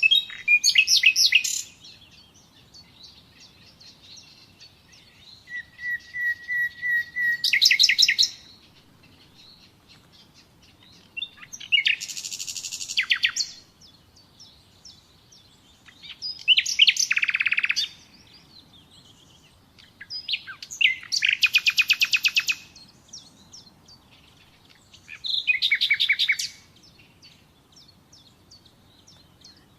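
Common nightingale singing in separate phrases of a couple of seconds each, with pauses between them. The phrases are built of fast repeated notes and trills, and one opens with a long steady whistle before breaking into rapid notes.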